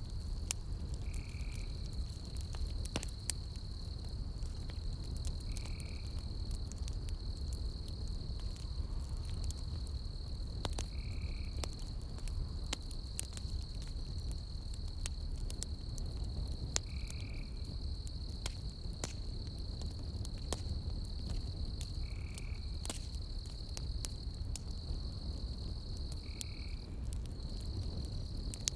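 Burning-log campfire crackling, with scattered sharp pops over a low steady rumble. A steady high insect trill runs behind it, with a short chirp repeating about every five seconds.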